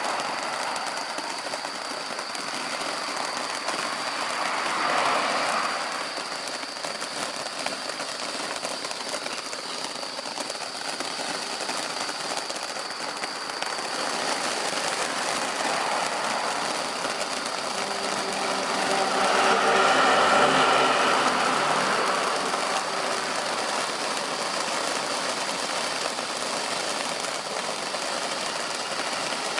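Fountain-battery fireworks of three volcano fountains spraying: a steady rushing hiss. It swells louder about five seconds in, and again about two-thirds of the way through, where a low humming tone joins it.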